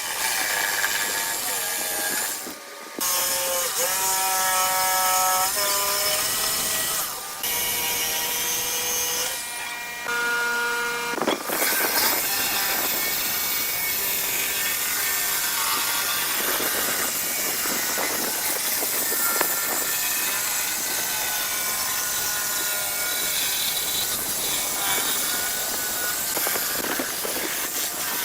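Power tools working wood, a whining motor with cutting and grinding noise, in several short clips that change abruptly.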